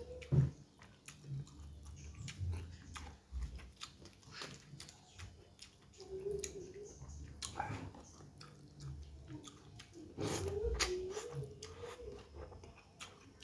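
Close, wet chewing and mouth smacks of a man eating noodles in broth by hand, with many short clicks. A low wavering hum-like sound comes twice; the longer one, about ten seconds in, is the loudest part.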